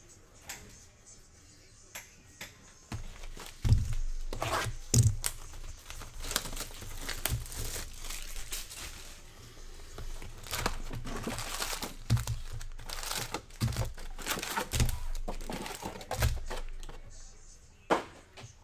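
Wrapping and foil packs of a 2024 Bowman baseball card hobby box crinkling and tearing as the box is opened and the packs are pulled out, with several soft thumps as they are set down. The handling starts about three seconds in.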